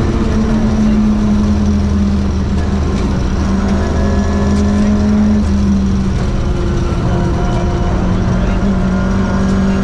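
Ford Escort Mexico rally car driven hard on gravel, heard from inside the cabin: the engine runs under heavy load, its note stepping up and down with throttle and gear changes, over a steady road rumble with small ticks of gravel hitting the car.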